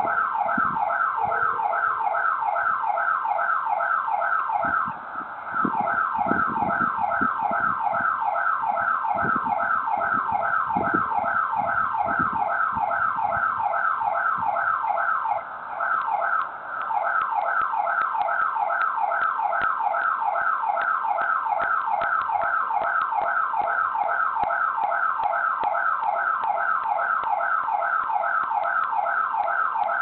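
Electronic alarm siren sounding without a break, heard through a video doorbell's microphone: a rapid sweeping tone repeated several times a second. It cuts out briefly twice, about five and about fifteen seconds in.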